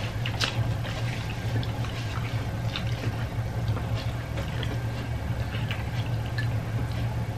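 Eating sounds at a meal table: scattered light clicks of a spoon against plates and wet mouth sounds, over a steady low hum.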